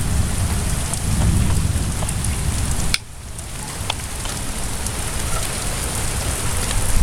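Steady rain falling on surfaces, with low rumbling thunder underneath. The whole sound drops suddenly about three seconds in, then builds back up.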